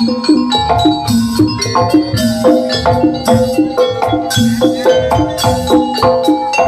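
Live, amplified jaranan gamelan music: struck metallophones playing a fast repeating melody over steady drum strokes, with bright cymbal-like crashes recurring about twice a second.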